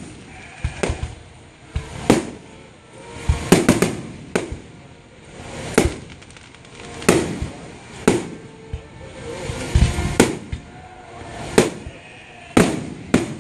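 Fireworks display with aerial shells bursting in a steady run of loud bangs, roughly one a second.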